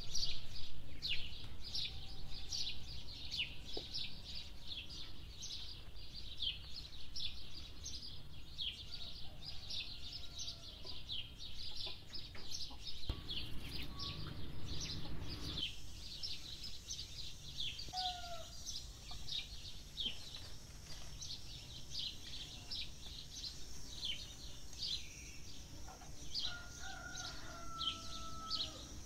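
Small birds chirping rapidly and without a break, with domestic fowl calling over them: once briefly and once in a longer, drawn-out call near the end.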